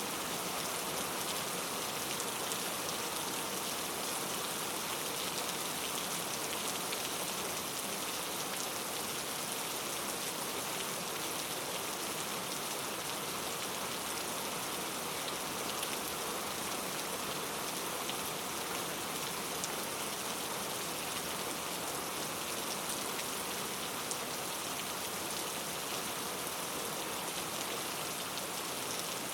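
Steady rainforest rain: a dense, even hiss of rainfall with now and then a single sharper drop.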